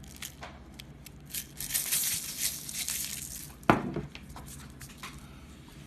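Rustling, crinkling noise for a second or two, then a single sharp thump a little past halfway, followed by a few faint clicks.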